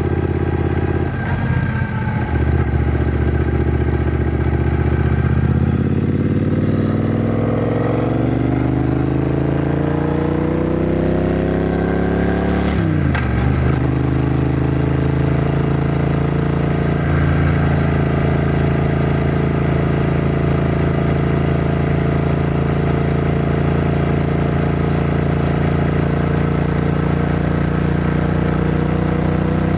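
Triumph Bonneville T120's 1200 cc parallel-twin engine under way: it pulls up through a gear with a steadily rising pitch, drops sharply at a gear change about thirteen seconds in, then holds a steady note at cruising speed.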